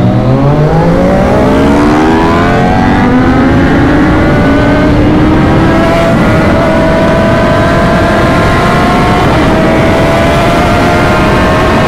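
Superbike engine accelerating at speed under a steady rush of wind. Its pitch climbs steeply in the first two seconds, then rises slowly, with small dips at about six and nine seconds as it changes gear.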